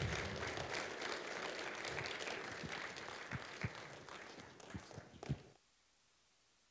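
Congregation applauding. The clapping thins to a few last separate claps and cuts off suddenly a little over two thirds of the way through.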